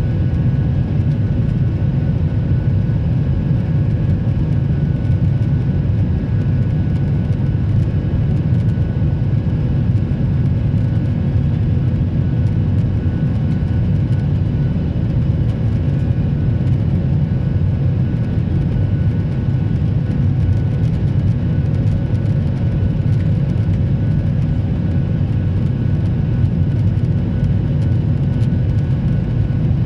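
Jet airliner cabin noise: a steady, loud rush of engine and airflow noise, with a low hum and a few faint steady tones, unchanging throughout.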